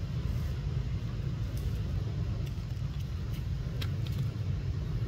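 A steady low rumble, with a few faint clicks in the middle.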